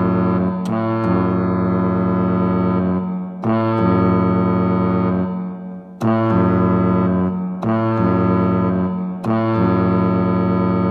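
Synthesizer keyboard playing a tuned, reverb-laden imitation of a cruise ship horn: deep sustained tones sounded as a series of long blasts, each held for about two to three seconds before the next.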